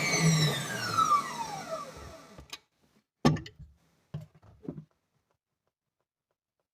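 Electric mixer beating egg whites and sugar is switched off, its motor whine falling in pitch as it spins down over about two seconds. A few sharp knocks and clatters follow.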